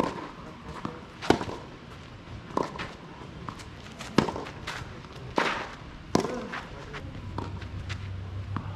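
Tennis rally on a clay court: sharp knocks of racket strings hitting the ball and the ball bouncing, coming about a second apart, with shoes scuffing on the clay between shots.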